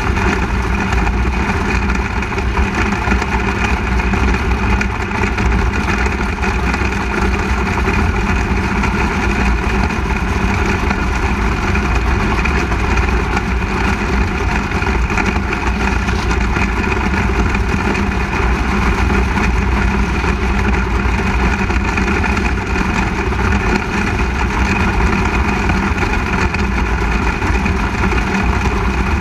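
360 sprint car's methanol-burning V8 engine running hard at racing speed, heard onboard, loud and steady throughout.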